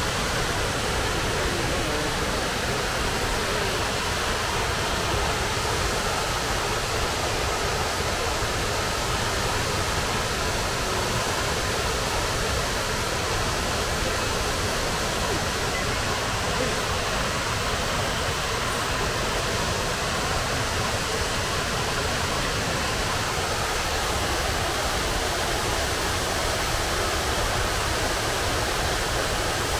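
Waterfall water falling and rushing steadily, an even hiss with no breaks.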